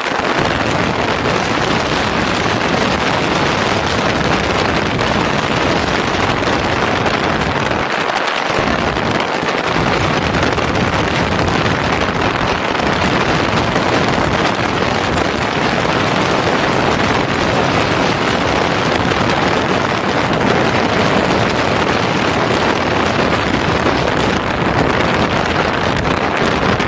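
Wind rushing over a bike-mounted microphone on a motorcycle under way, a steady loud rush with the bike's road and engine noise buried in it. The deepest part of the rush dips briefly about eight seconds in and again a moment later.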